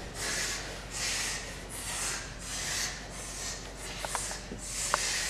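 A performer breathing hard after exertion, in quick, even, hissing breaths about one every three-quarters of a second. Two brief squeaks near the end.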